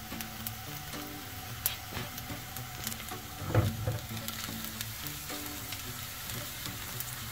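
Whole garlic cloves sizzling in hot oil in a frying pan, with scattered sharp pops. A single low thump comes about three and a half seconds in.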